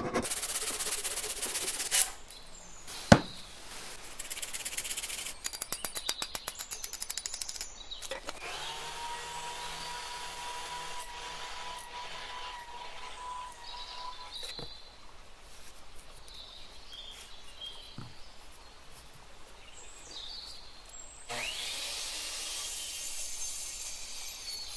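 A run of wood-cutting sounds in a workshop. It starts with a hand saw stroking through a dry log, with a sharp knock a few seconds in. Next comes a bandsaw running with a steady whine for several seconds, and near the end a power miter saw cuts through a log slice.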